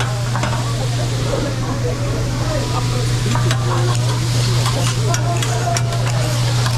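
Vegetables sizzling on a hot griddle, with metal spatulas clicking and scraping across the cooking surface several times. A steady low hum runs underneath.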